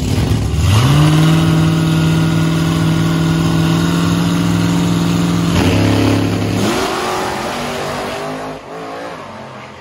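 Supercharged Dodge Challenger SRT Hellcat Redeye's V8 revved up and held at a steady pitch on the starting line for about five seconds. It launches about five and a half seconds in, its pitch dropping and then climbing again through a gear change as it pulls away down the strip and fades.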